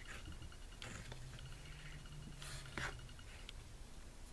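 Faint rustling of bracelet threads being pulled and tied into knots, with a few brief soft swishes of thread against the board.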